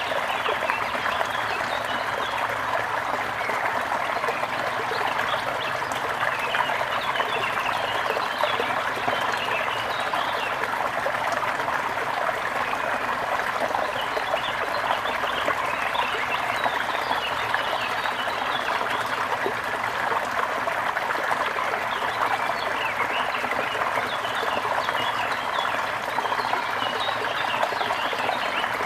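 Gentle river water flowing and trickling steadily, with small birds chirping throughout.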